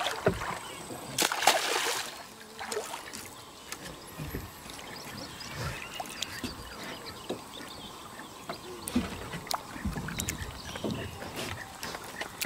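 A hooked fish thrashing and splashing at the water's surface beside a small boat, loudest in a noisy splash about a second in, followed by scattered smaller splashes and low knocks.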